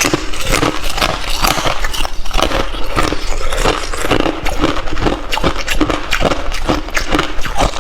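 Hard ice being chewed close to the microphone: dense, crackling crunches in a steady chewing rhythm.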